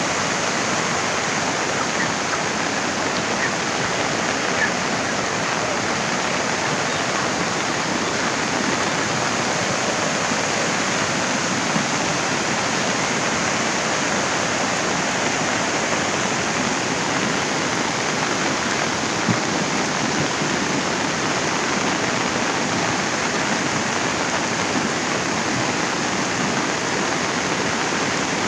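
Floodwater rushing, a steady, unbroken wash of water noise.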